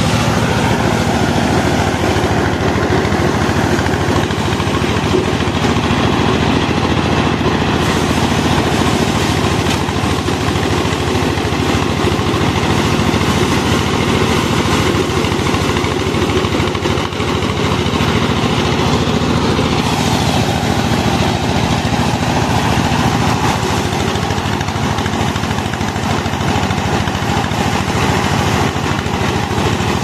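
Paddy thresher driven by a small engine, running steadily under load as rice stalks are fed into its threshing drum, the engine hum mixed with the dense rattle of grain being beaten from the stalks.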